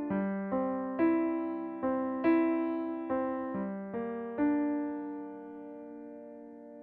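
Background music of slow solo piano, single notes struck about twice a second. Near the end one chord is held and fades away.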